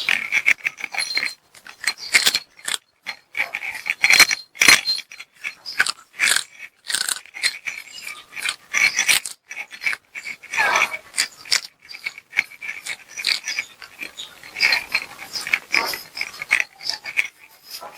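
Tabby cat eating a treat: quick, irregular chewing clicks and smacks that come close together.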